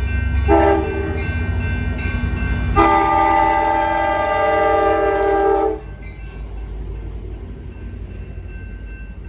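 A horn sounding a chord of several notes, with a short blast and then a long one of about three seconds, over a low rumble that dies away as the long blast starts.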